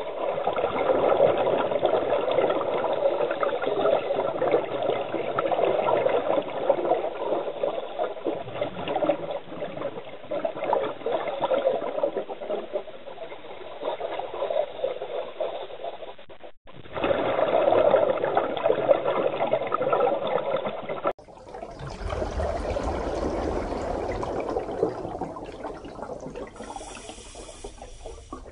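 Underwater bubbling and rushing of a scuba diver's exhaled air, rising past the mask and regulator in surges as he breathes out and blows air into the mask to clear it of water. The sound cuts briefly about two-thirds of the way through, and a little later switches abruptly to a fuller, rushing water sound.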